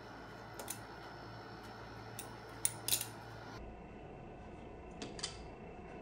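Hom Design Spectre butterfly knife (balisong) flipped open in an aerial: sharp metallic clicks of the handles and pivots, the loudest pair about halfway through, with a few lighter clicks before and another pair near the end.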